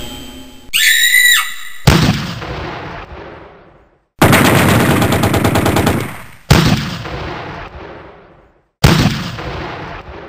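Stock gunfire sound effects: single loud shots, each fading away with a long echoing tail, and a steady burst of rapid fire lasting about two seconds. A short pitched electronic tone comes just before the first shot.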